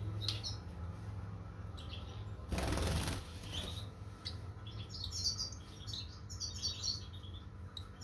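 Young lovebird fluttering its wings in one short burst about two and a half seconds in, then giving a run of quick, high chirps.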